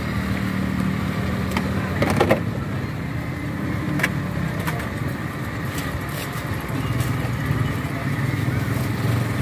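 Steady low engine-like hum, with a few sharp clicks and a short clatter about two seconds in as ice and plastic cups are handled on a steel counter.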